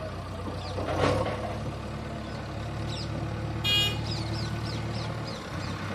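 Mahindra 585 DI tractor's four-cylinder diesel engine idling steadily, with a short horn toot a little past halfway through.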